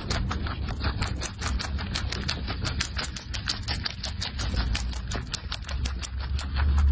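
Rabbit chewing a dry dandelion seed head, a quick run of small clicks, several a second, over a low rumble.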